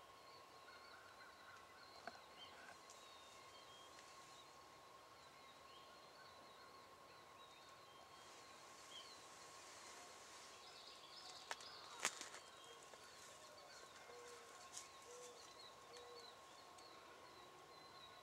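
Wild turkeys (jakes) calling faintly in short soft notes, over a steady faint high tone. Two sharp clicks a little past halfway are the loudest sounds.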